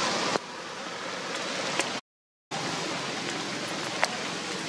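Steady hiss of rain falling on wet stone paving, broken by a half-second dropout of silence about two seconds in.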